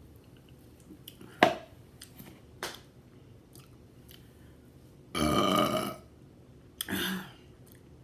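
A woman eating with loud mouth sounds: a sharp smack a second and a half in and a couple of softer clicks. Then a long, loud burp about five seconds in and a shorter burp near seven seconds.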